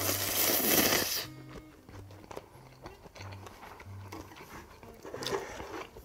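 Loud slurp of tonkotsu ramen noodles for about a second at the start, then a shorter slurp about five seconds in, over soft background music.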